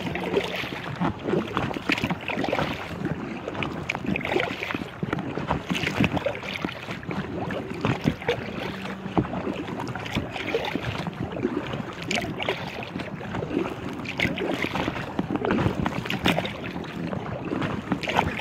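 Choppy lake water splashing and slapping against the hull of an inflatable kayak in irregular splashes, with wind buffeting the microphone.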